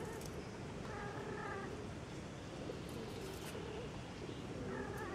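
Capuchin monkey calls: two short calls, each held at a steady pitch, about a second in and again near the end. They sit over a steady background hiss with a few soft clicks.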